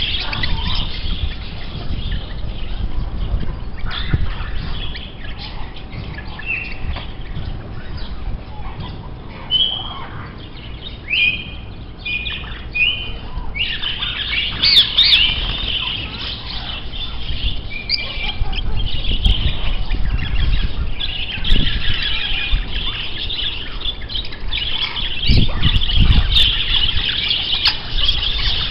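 A flock of small birds chirping and squawking in dense, overlapping chatter. The chatter thins out for a while, when a few short whistled notes stand out, then builds up again, over a low rumble.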